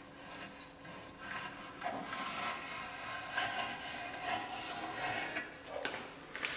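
Hand scraper scraping along the flange of an engine oil pan in quick, uneven strokes, taking off old gasket material, with a sharp click near the end.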